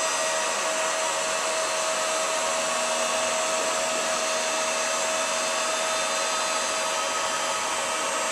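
Virutex AG 98 hot-air edge bander running steadily, its blower giving a constant rushing noise with a steady whine, as it is drawn along a board's edge gluing on edge banding.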